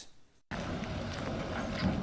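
A brief near silence, then from about half a second in a pickup truck's engine running low under a steady outdoor noise, with a few light knocks.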